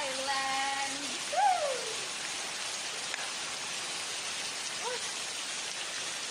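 Steady rain falling, an even hiss throughout. In the first two seconds a voice holds a sung note and then slides down in pitch, the loudest sound here, and a short faint call comes about five seconds in.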